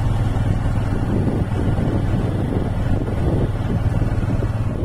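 Engine and road noise of a moving vehicle: a steady low drone with wind rumbling on the microphone. The drone drops away near the end.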